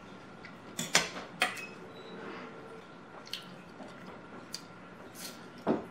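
Eating sounds: a fork clicks against a plate, sharply about a second in and again half a second later, with quieter clicks later on and soft wet chewing and smacking in between.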